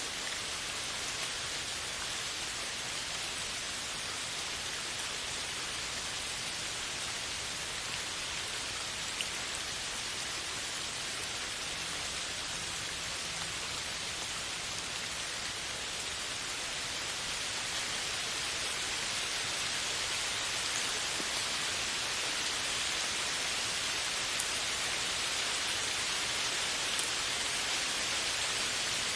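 Steady downpour of rain falling on a leafy forest canopy, a dense even hiss that grows slightly louder in the second half.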